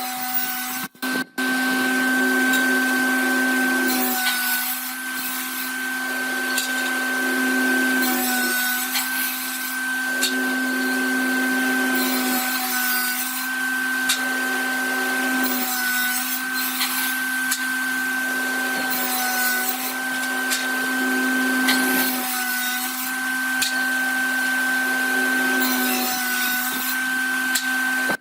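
An electric woodworking power tool running with a steady motor hum, with a louder hissing stretch every few seconds as it works the wood. The sound drops out twice, very briefly, about a second in.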